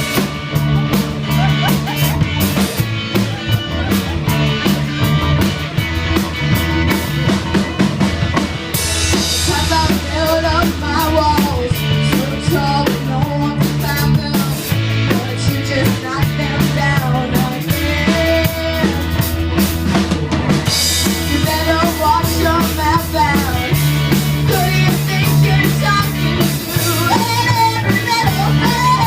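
A rock band playing live: a drum kit keeps a steady beat under a stepping bass line and a wavering melody. The cymbals wash louder for a few seconds about a third of the way in, and again past two-thirds.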